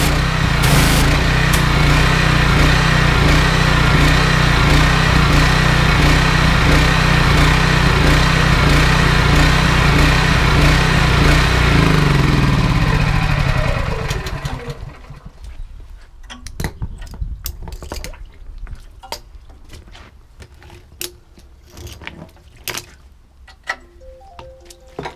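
Honda GX390 petrol engine driving the belt-driven pressure washer pump, running steadily, then shut off about 12 seconds in and winding down to a stop within two seconds. Afterwards only faint scattered ticks and drips remain.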